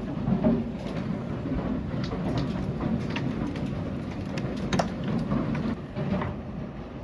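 Large hailstones and heavy rain pelting down: a steady wash of rain with scattered sharp hail impacts cracking through it.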